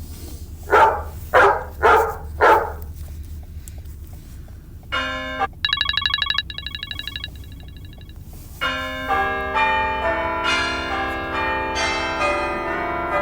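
Phone ringtones played back one after another: four short blasts close together, then a brief tone and a fast trilling electronic ring, then a chiming melodic ringtone of many notes.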